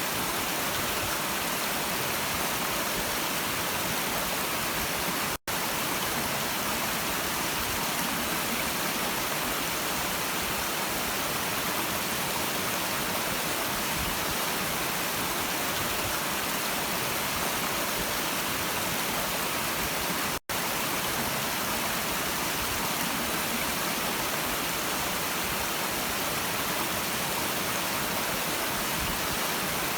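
Brook water flowing in a steady, even rush, with two very brief dropouts to silence about five and twenty seconds in.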